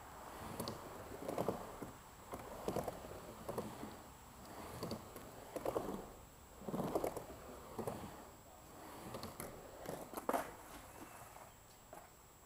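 Skateboard wheels rolling back and forth across a concrete half-pipe, the rumble swelling and fading about once every second or so as the board passes through the bottom of the ramp, with a few sharp clacks from the board.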